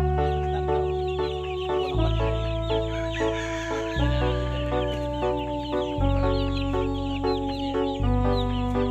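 Chickens clucking over background music, a melody on a bass note that changes every two seconds.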